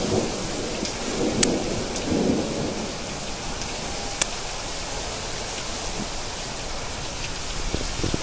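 Steady rain falling, with a low rumble of thunder during the first couple of seconds. Two sharp ticks of drops are heard, about a second and a half in and about four seconds in.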